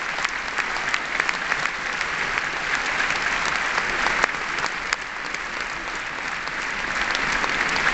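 Large audience applauding, a dense steady mass of clapping that eases slightly midway and builds again near the end.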